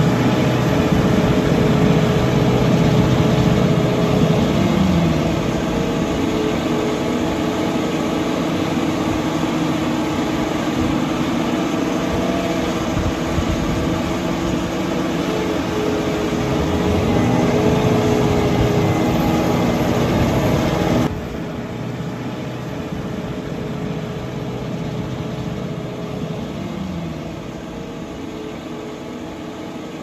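Self-propelled feed mixer wagon's engine running hard while its front loading cutter mills silage from the bunker face, the pitch rising and falling with the load. About two-thirds of the way through the sound cuts abruptly to a quieter, steadier machine hum.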